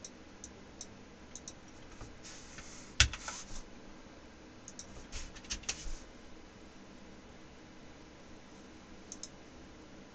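Computer keyboard keystrokes in a few short runs, with one louder key strike about three seconds in.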